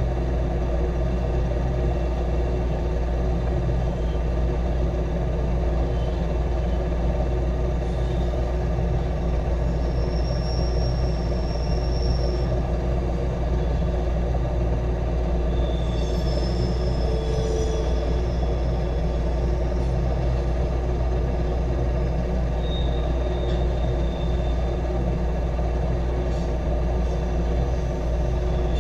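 Intermodal freight train's cars rolling past: a steady rumble of steel wheels on rail, with a few brief faint high squeals from the wheels.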